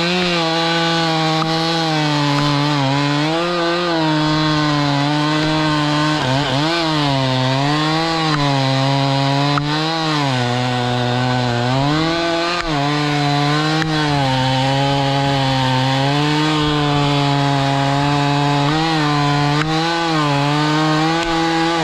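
Two-stroke chainsaw held at full throttle, cutting through a large oak trunk. Its engine note dips and recovers again and again as the chain loads up in the wood.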